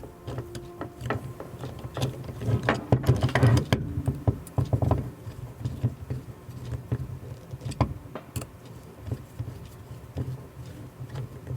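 Small metal camera-rig parts being handled and screwed together: irregular clicks, knocks and light rattles as a V-lock plate is fitted back onto a cheese plate, busiest a few seconds in, over a steady low hum.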